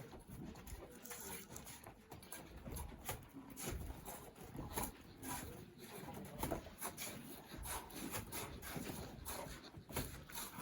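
Bricklaying with cement mortar: a trowel scraping and spreading mortar, with irregular short taps and knocks.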